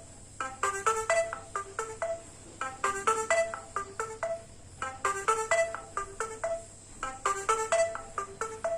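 Built-in ringtone of a Strawberry ST22 mobile phone: a short, quick electronic melody of beeping notes that repeats about every two seconds.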